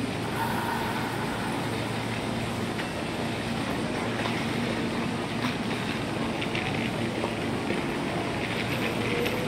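JR West 225 series electric train standing at the platform with a steady low hum, then starting to pull away near the end, when a higher sound joins in.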